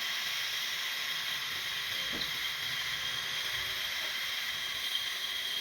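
Sawmill machinery running steadily: an even, high-pitched hiss with a thin whine in it.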